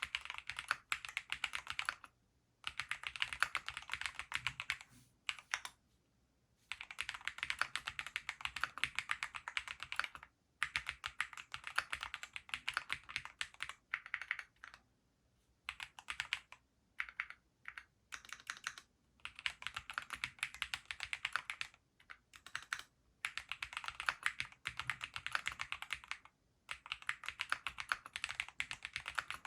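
Typing on a Graystudio Space65 III custom mechanical keyboard fitted with Gateron Pure Berry linear switches: fast runs of keystrokes broken by short pauses of about a second, several times over.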